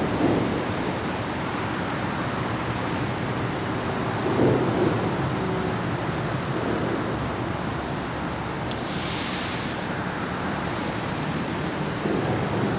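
Steady wind noise buffeting the microphone, swelling in gusts about four and a half seconds in and near the end. A sharp click and a short hiss come just before nine seconds.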